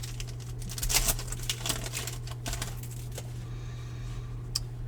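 Baseball trading cards being handled and flipped through by hand: a quick run of light clicks and card-on-card rustles, thinning out after about two and a half seconds, over a steady low hum.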